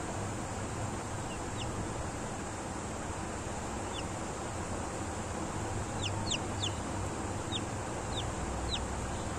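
Kadaknath chick peeping: short, high, downward-sliding peeps, a few at first and then a quicker run of them from about six seconds in, over a steady hiss.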